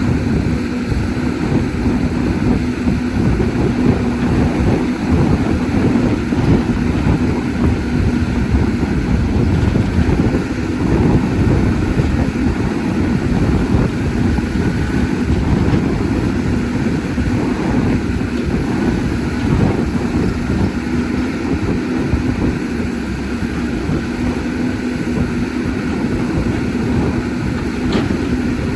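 Caterpillar 320D excavator's diesel engine running steadily, a constant low drone with a steady hum.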